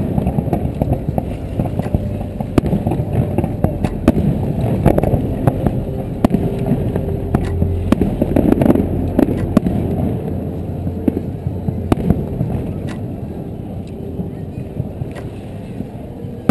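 Fireworks display: irregular sharp bangs and crackling pops of shells bursting, over a steady low rumble and the murmur of voices.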